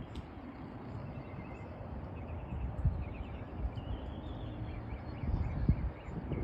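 Small birds chirping, short repeated calls over a low, uneven rumble.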